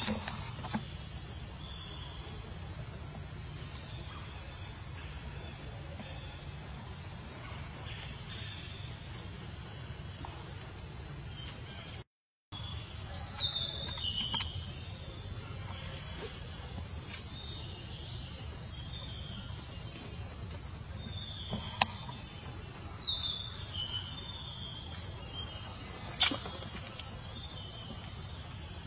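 Outdoor forest ambience: a steady high-pitched insect drone over a low background rumble, with birds chirping in two short runs, about halfway through and again a few seconds later, and one sharp click near the end.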